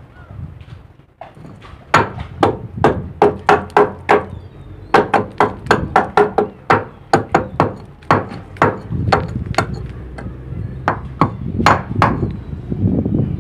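A hand hammer striking the boat's steel deck fittings in quick runs of sharp blows, about three a second, each with a brief metallic ring. It starts about two seconds in and stops shortly before the end.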